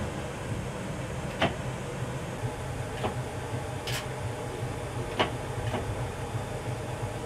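Steady low hum of a stopped electric tram's onboard equipment, broken by several short, sharp clicks.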